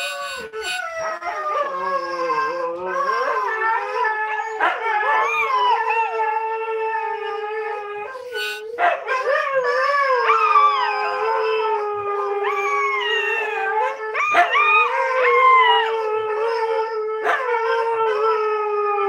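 Siberian huskies howling together in long, drawn-out howls whose pitch slowly glides, several voices overlapping, with a short break about eight seconds in. This is the huskies' "singing".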